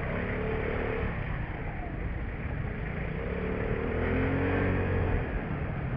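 Vespa LX150ie scooter's single-cylinder four-stroke engine running under way and accelerating, its pitch rising and falling, over steady road noise.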